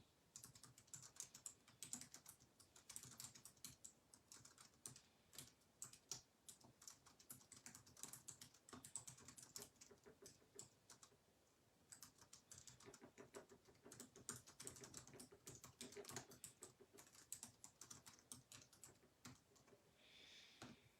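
Faint typing on a computer keyboard: quick, irregular key clicks, with a brief pause a little before halfway.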